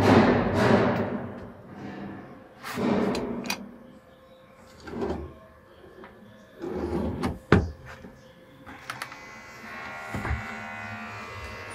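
Wooden cabinet drawers and doors being opened and closed: short knocks, slides and latch clicks, with one sharp click about seven and a half seconds in and a thump near the end. Orchestral music fades out at the start.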